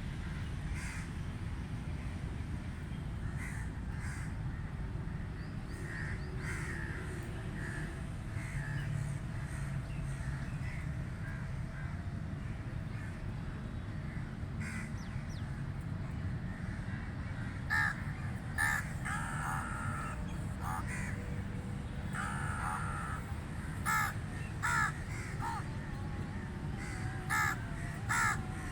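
Crows cawing: faint, scattered caws at first, then a series of louder, short, harsh caws in quick groups from about two-thirds of the way in, over a steady low background rumble.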